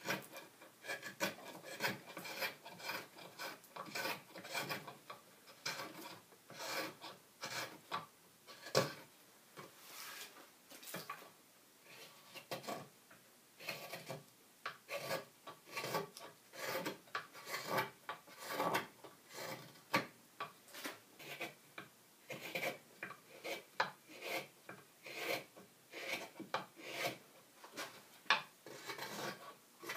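A Nic Westermann twca cam, a Welsh hooked crook knife, slicing and scraping shavings out of the hollow of a green cherry bowl in a steady run of short strokes, about one to two a second, the edge cutting cleanly. One sharper knock about nine seconds in.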